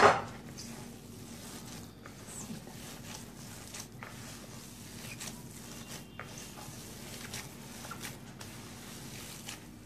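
Gloved hands mixing and kneading damp pumpkin-and-bulgur kibbeh dough with flour in a plastic bowl: faint, soft crumbly rustling with scattered small ticks.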